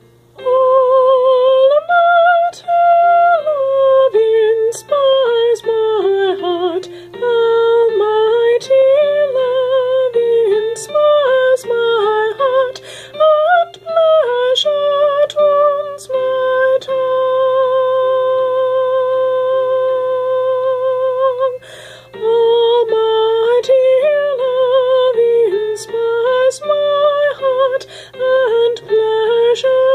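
A woman singing a slow melody with vibrato and long held notes, over a quieter instrumental accompaniment.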